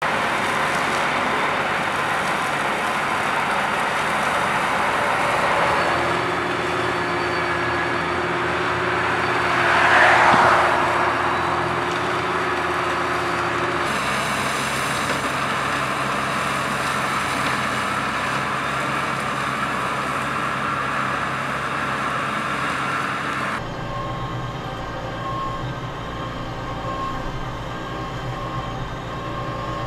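Tractor engines running while the RASCO MAXIMA crane mowers' HYDRA mowing heads cut grass: a steady mechanical drone that swells louder about a third of the way in. For the last six seconds it is heard from inside the Claas Arion 620's cab, quieter and duller, with the engine's low hum to the fore.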